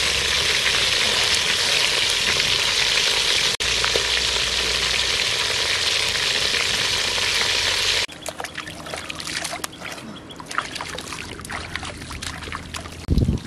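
Whole frogs frying in oil in a metal pot, turned with a wooden spatula: a loud, steady sizzle. About eight seconds in it cuts off, and quieter, irregular splashing and rustling follow as hands move through shallow rice-paddy water.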